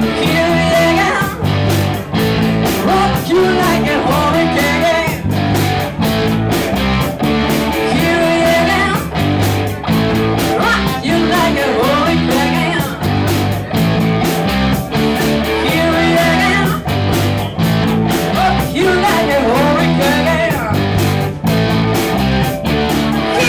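Rock music: a lead electric guitar with bending, gliding notes over a steady drum beat and sustained bass notes.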